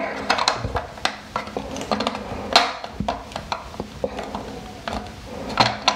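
Light clicks and taps of plastic bidet spacer discs being handled and placed against the bidet's plastic mounting plate on the toilet, scattered irregularly.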